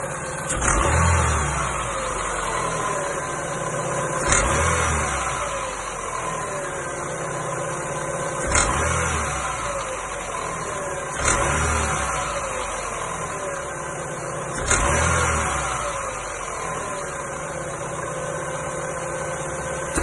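Chevrolet Aveo 1.6 16-valve engine blipped five times from idle, each rev dropping back to idle, with a rattling knock that sounds like piston pins. The knock comes from the accessory-belt tensioner striking its end stop as the throttle closes, because the belt is slightly too long.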